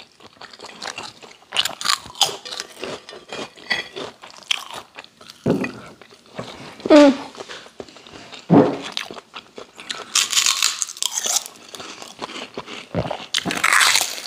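People eating with their hands, biting and chewing crisp kerupuk crackers: scattered crunches and clicks, with the densest crunching about ten seconds in and again near the end. A short hummed "mm" about seven seconds in.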